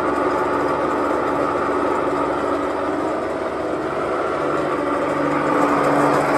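DIOSNA P 1/6 high shear granulator running, its impeller and chopper motors giving a steady mechanical hum with a held whine, dipping slightly about halfway through.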